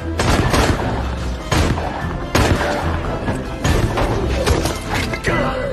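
Cartoon action sound effects: gunfire shooting through a wooden board, with several sharp crashes and wood splintering, over background music.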